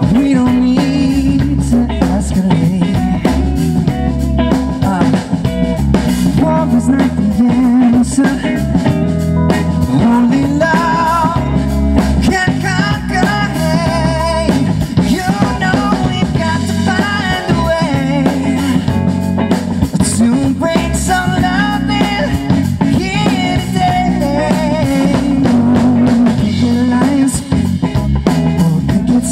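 Live rock band playing at a sound check: drum kit, electric guitar and bass, with a voice singing over them at times.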